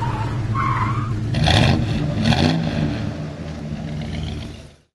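Car engine running and revving, with a tire squeal about half a second in and two loud rushes of noise soon after, then fading out near the end.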